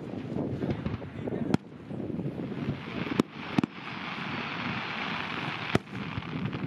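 Aerial fireworks shells bursting in sharp bangs, four in all, over a constant low rumble. Between the third and fourth bang there is a stretch of hissing noise.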